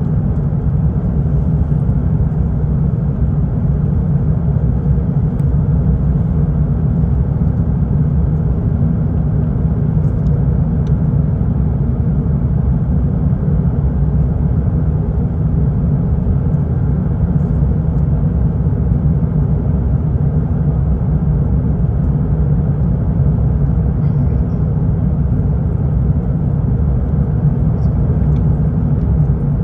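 Airbus A350 airliner, a steady low rumble of engines and rushing air that holds even throughout without any change.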